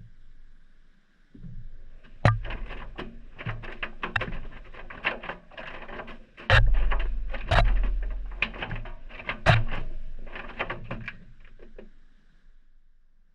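Maytag front-loading washing machine drum turning during a delicate cycle, heard from inside the drum, with irregular knocks and clicks as the wash tumbles against the drum and a few heavy low thumps. The tumbling stops about a second before the end.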